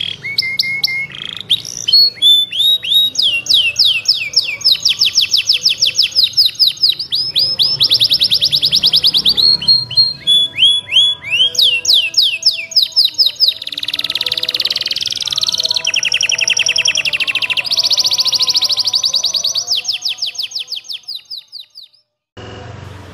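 Domestic canary singing a long, fast song of rolling trills and rapidly repeated sweeping chirps, fading out near the end.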